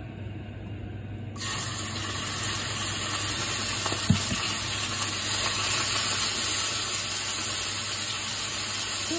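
Sliced raw beef hitting hot oil in a frying pan: a sizzle that starts suddenly about a second and a half in and goes on steadily, with a soft knock near the middle.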